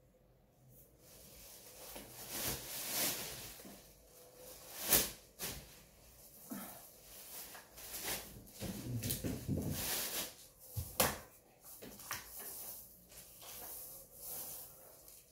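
Handling noises of house-painting work: scattered sharp knocks and clicks, the loudest about five and eleven seconds in, with stretches of soft rustling and hissing between them.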